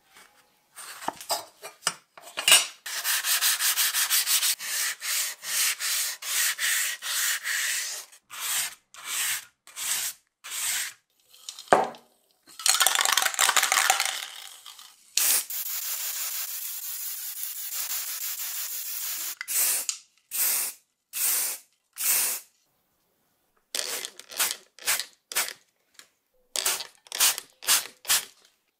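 Hand sanding of thin sheet-metal toy pistol parts with a P600 sandpaper disc: quick back-and-forth rubbing strokes. About halfway through comes a steady aerosol spray-can hiss lasting about four seconds as primer is sprayed on. Near the end come short, separate rubbing strokes of wet sanding with waterproof sandpaper on the primed metal.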